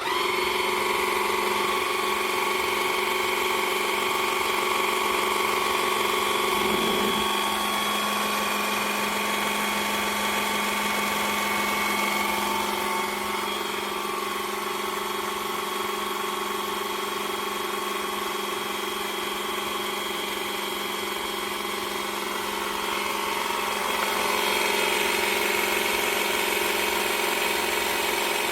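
A motor or engine running steadily with a droning hum that starts abruptly, its pitch shifting slightly a few times.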